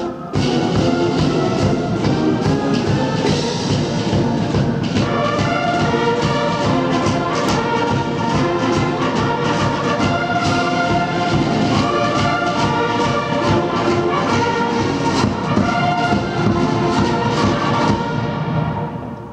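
Massed military band of bugles and brass with cymbals playing a loud tune, which ends near the end.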